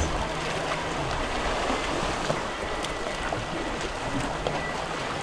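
Steady rush of wind and water heard from aboard a boat, with a faint low hum in the first couple of seconds.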